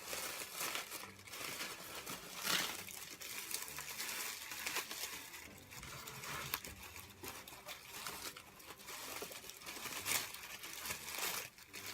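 Packing wrap crinkling and rustling in irregular crackles as it is torn open and pulled away from a fragile item by hand.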